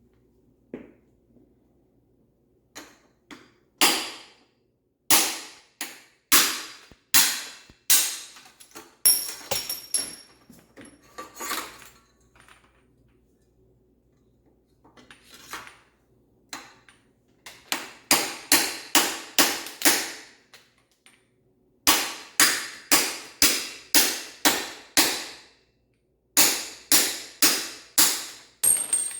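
Hammer blows on metal bicycle headset parts, coming in runs of quick strikes about two or three a second, with pauses between the runs. A few blows leave a brief metallic ring.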